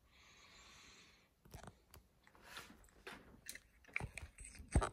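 Handling noise: a soft rush in the first second, then scattered light clicks and knocks, with a louder thump near the end.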